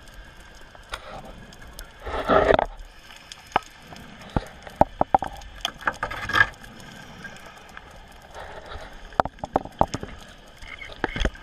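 Underwater sound on a wreck dive: a short, loud, rushing burst about two seconds in, then scattered sharp clicks and knocks over a faint crackling hiss.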